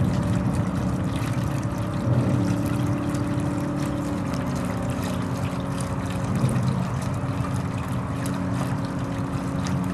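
Spaceship-style ambient soundtrack from the robot display's speakers: a steady low rumble under held electronic tones that change pitch a few times.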